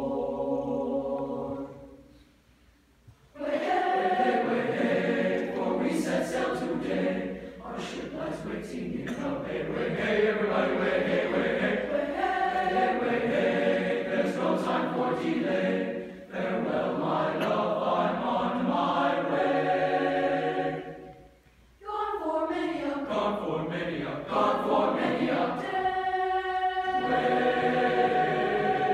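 Large boys' choir singing in several parts, with two short breaks where the singing stops, about two seconds in and again about twenty-one seconds in.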